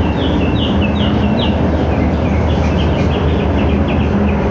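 A bird chirping over and over, short falling notes about three a second that fade near the end, over a steady low rumble.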